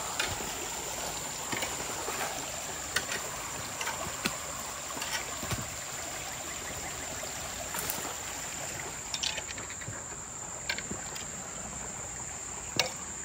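Flood water rushing steadily, with scattered light knocks and clicks and a steady high insect trill over it.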